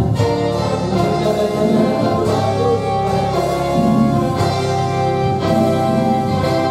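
Live church worship-band music playing the opening of a song, with long held notes.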